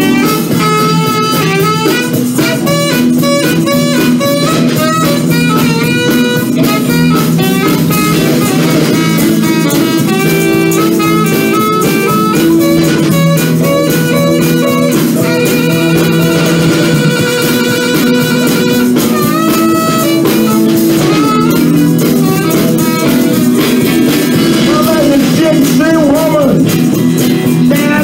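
Live blues band playing an instrumental break with no singing: a saxophone lead line over electric guitars and drums, with one long held, wavering note about halfway through.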